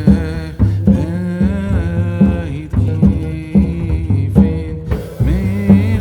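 Background music: a singing voice over a steady bass and drum beat.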